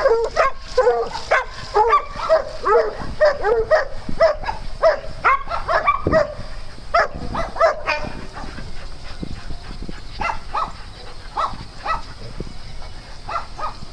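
Dogs barking over and over, about two barks a second. The barking drops off about eight seconds in, leaving fainter, scattered barks.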